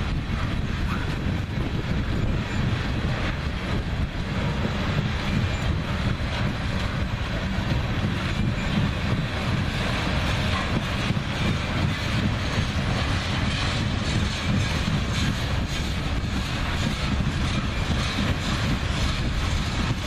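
BNSF freight train's cars rolling steadily past: a continuous rumble of steel wheels on rail with faint clicking over the joints.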